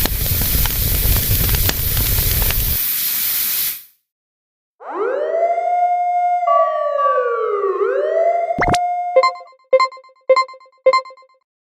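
Cartoon sound effects: a loud whooshing rush with a deep rumble that stops abruptly after about four seconds, then after a short silence, whistle-like tones that swoop up and down, a sharp click, and about four evenly spaced bell-like dings.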